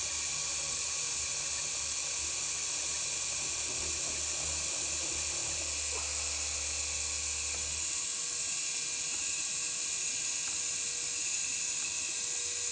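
CNC3018 desktop router's spindle running at high speed with a steady high whine, its end mill cutting back modelling putty filled into a plastic model kit part. A low hum under the whine stops about eight seconds in.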